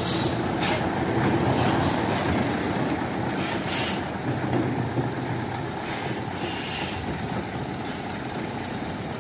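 Mitsubishi Fuso Super Great tractor unit slowly hauling a heavily loaded lowbed trailer past: a steady heavy-vehicle rumble of engine and rolling wheels, with brief high-pitched sounds every second or two, slowly fading.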